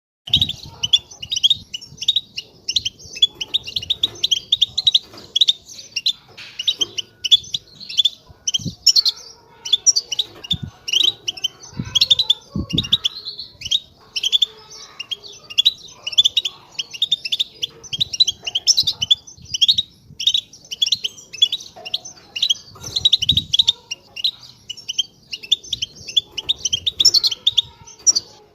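European goldfinch singing its twittering song, a continuous run of quick high chirps and trills, with a few brief low thumps.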